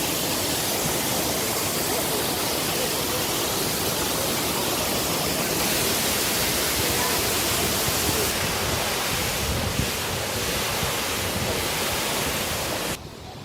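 Steady rush of a waterfall, an even wash of falling water that cuts off suddenly near the end.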